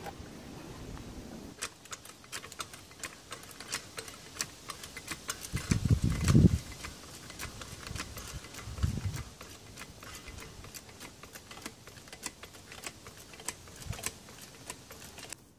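Many light, irregular clicks and taps, with a heavier low thump about six seconds in and a smaller one about nine seconds in.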